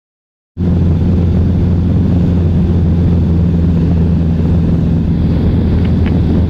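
Cessna 152's four-cylinder Lycoming engine and propeller droning steadily inside the small cabin in flight, a loud, even sound with a deep hum. It cuts in abruptly about half a second in.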